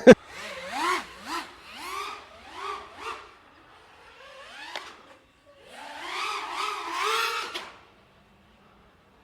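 5-inch FPV quadcopter's motors revving in a quick series of rising throttle blips, then a longer throttle punch of a second or two near the end, a whining pitch typical of a power loop being flown.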